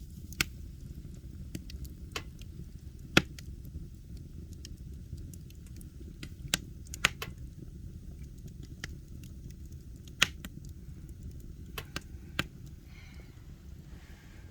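Wood fire burning in a fireplace: a steady low roar with irregular sharp crackles and pops, about a dozen of them, the loudest about three seconds in.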